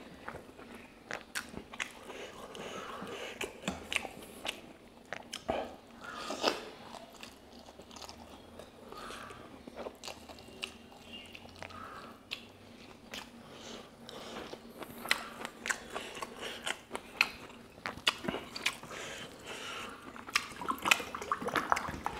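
Close-miked chewing and mouth sounds of a person eating pork curry with rice by hand: many short wet clicks and smacks, busiest near the end.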